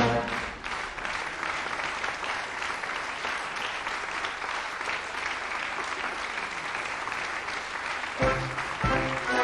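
Theatre audience applauding steadily as the music cuts off. Music strikes up again about eight seconds in.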